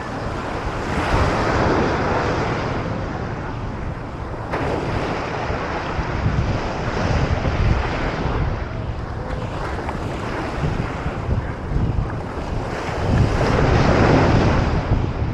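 Ocean surf breaking and washing up the beach, swelling louder twice, with wind buffeting the microphone as a steady low rumble.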